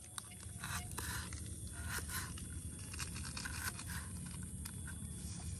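Large kitchen knife slicing red shallots on a small wooden chopping board: a string of crisp cuts and taps of the blade on the wood, at an irregular pace.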